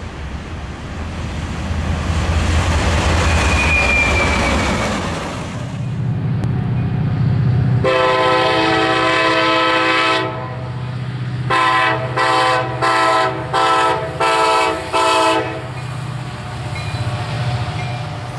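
Diesel freight locomotives: an approaching locomotive's engine rumbling, then a locomotive air horn sounding one long blast followed by about six short blasts in quick succession, with the engine running underneath.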